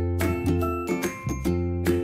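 Light, upbeat background music: a bass line and chords with bright mallet-like notes struck about twice a second.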